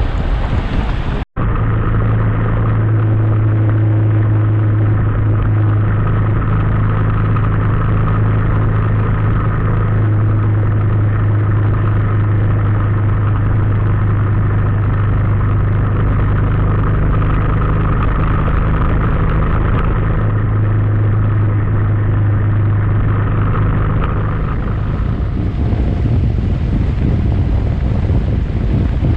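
Motorcycle engine running at a steady speed while riding, with wind noise on the microphone. The steady drone drops away near the end, leaving mostly wind noise.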